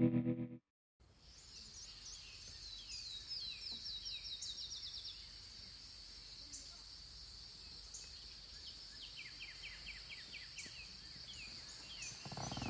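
Steady high-pitched insect drone with bird calls over it: two quick runs of short falling notes, about four a second, the second run lower in pitch.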